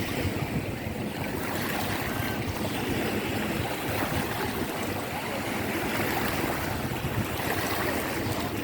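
Sea surf washing on a beach, a steady rushing wash of water with some wind on the microphone.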